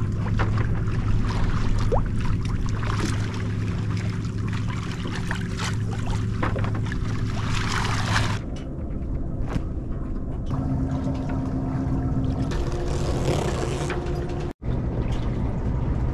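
A boat's engine running steadily under way, a low hum with water noise over it. The sound jumps to a different engine note about eight seconds in and drops out briefly near the end, as at cuts between clips.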